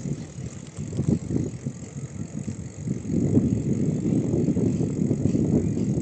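Low, fluttering rumble of riding a bicycle along a country road, with wind buffeting the microphone. It gets louder about three seconds in.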